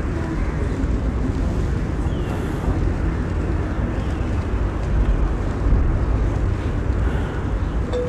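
Steady low rumble of background noise, with no speech or music.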